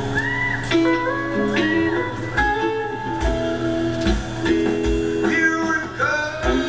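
Music: a melody with sliding, bending notes over held chords, joined by a low steady beat about two and a half seconds in, a little more than one beat a second.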